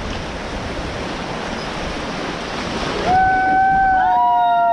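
Rushing river water from the rapids of the Beas River. About three seconds in, one voice starts a long, steady, held whoop, and a second voice joins a second later at a slightly higher pitch.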